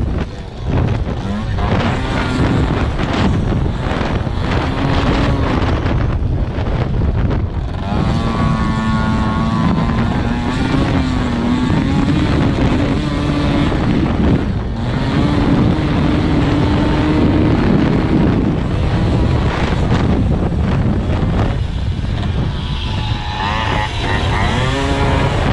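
Small motorbike engine revving up and falling back again and again as the bike is ridden over dirt, with wind buffeting the microphone.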